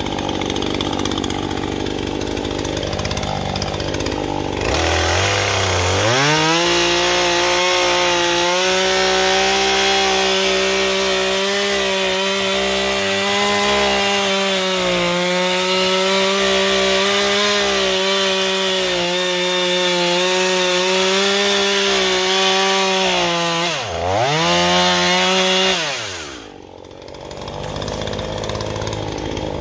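New Husqvarna two-stroke chainsaw running. It idles, is revved up to a high steady whine about five seconds in and held there, dips and picks up again once, then falls back to idle near the end. The new engine is being warmed up.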